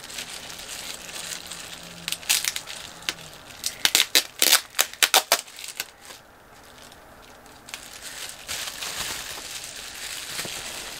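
Packaging crinkling and rustling as it is handled. There are sharp crackles about two seconds in and a quick run of them between four and five and a half seconds, then softer rustling near the end.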